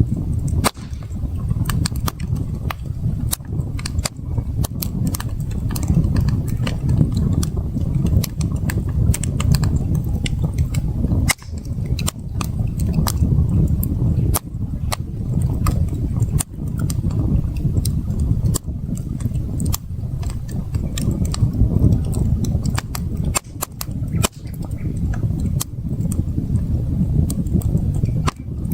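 Wood campfire crackling, with frequent irregular sharp pops and snaps over a steady low rushing sound.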